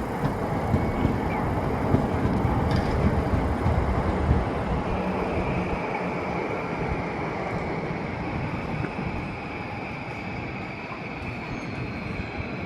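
Toei Arakawa Line tram running over the rails at a level crossing: a continuous rumble of wheels on track, strongest in the first few seconds and then easing. A steady high whine comes in about halfway through.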